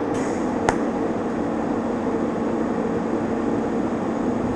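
TIG welding arc burning on thin-wall 4130 chrome-moly tubing at about 65 amps, a steady even hiss-buzz. A single sharp click about two-thirds of a second in.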